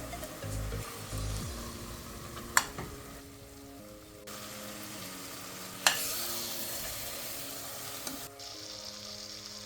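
Food sizzling as it fries in oil in a pot, the hiss stepping up and down abruptly, with two sharp knocks against the pot, one about two and a half seconds in and one about six seconds in. Background music plays underneath.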